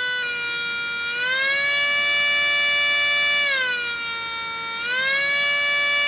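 3D-printed miniature single-rotor siren, spun by a small fan motor, sounding one steady whining tone. Its pitch rises about a second in, sinks again around four seconds and climbs once more near the end as the motor's voltage is turned up and down.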